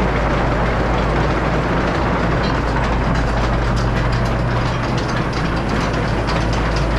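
Tractor-driven TMR feed mixer running steadily while unloading feed, with a continuous low engine hum and machinery noise.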